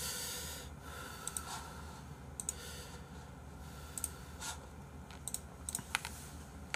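Faint, scattered clicks of a computer keyboard and mouse being worked, a few single clicks at first and then more of them close together in the second half.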